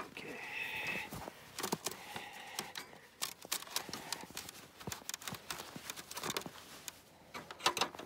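Pliers twisting and working steel wire around a body-grip trap's frame against a plastic crate: irregular metallic clicks, taps and scrapes, with a short scraping sound in the first second.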